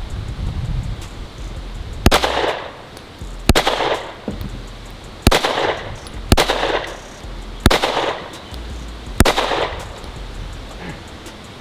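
Springfield Echelon 4.0C 9mm striker-fired pistol fired six times at an unhurried, uneven pace, each shot followed by a short echo.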